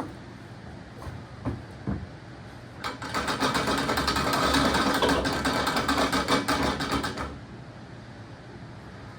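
Rapid, steady mechanical clattering from a tool working a stuck fastener or part loose on a John Deere 3020 tractor. It starts about three seconds in and stops about seven seconds in, after a couple of light knocks.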